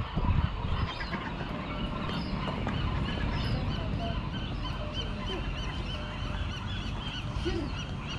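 Many birds calling continuously, with short squawking calls overlapping one another, over a steady low rumble.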